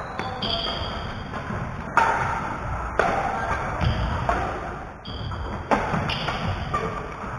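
Badminton rally: sharp racquet strikes on the shuttlecock, a few of them about a second apart, with sneakers squeaking on the hardwood gym floor in between.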